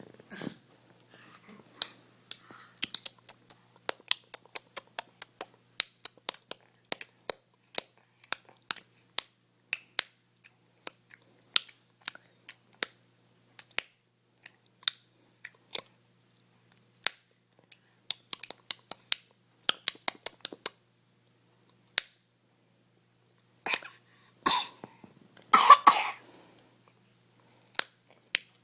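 A baby clicking his tongue over and over: sharp, short clicks at an uneven pace, often a few a second, in runs with short pauses. Near the end come two louder, longer rasping bursts.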